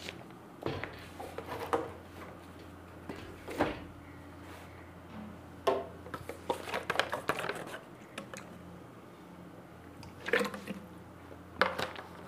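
Scattered small knocks and clicks, bunched most thickly about six to seven and a half seconds in, over a steady low electrical hum.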